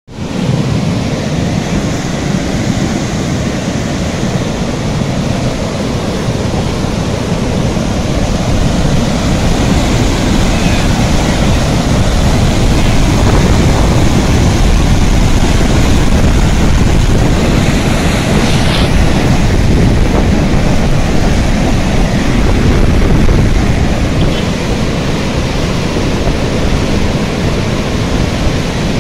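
Muddy flash-flood water rushing past in a loud, steady torrent, heaviest in the low rumble, carrying debris over a road after heavy rain.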